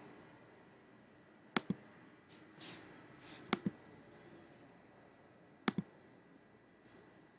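Computer pointer button clicking: three press-and-release pairs, about two seconds apart, over a low room hiss.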